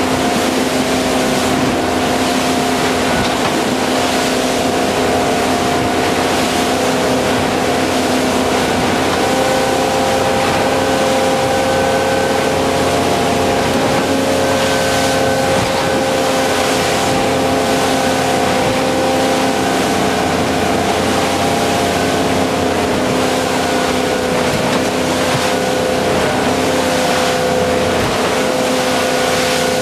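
Cabin cruiser running at cruising speed: a steady engine drone holding several even tones over a constant wash of wind and rushing water.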